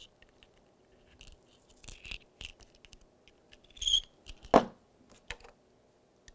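Light metal-on-brass scraping and small clicks of a hand chamfer and deburring tool working the mouth of a .308 Winchester brass case. About four seconds in come a sharp metallic clink and then a knock as a tool is handled and set down, and the rest is quiet.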